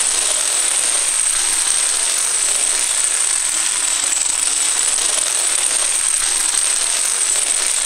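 Dense, rapid clatter of a great many dominoes toppling one after another in chains, an even, unbroken rattle at a steady level.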